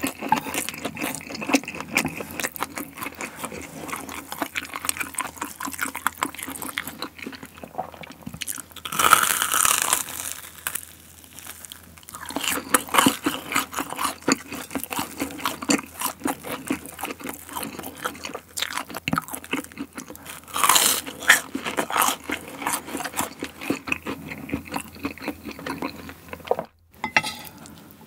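Close-miked chewing and crunching of crispy fried chicken and jjajang noodles, a dense run of wet clicks and crunches, with two louder stretches about 9 and 21 seconds in.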